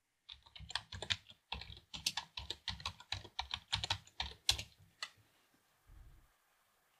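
Typing on a computer keyboard: a quick, uneven run of keystrokes, then one separate keystroke about five seconds in.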